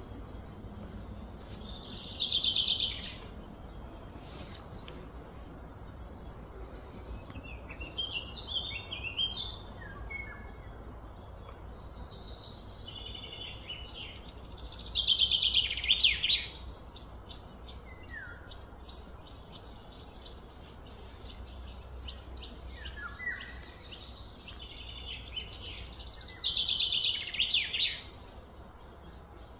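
Birds singing: a loud song phrase of rapid falling notes comes three times, about every twelve seconds, with fainter chirps and short calls from other birds in between.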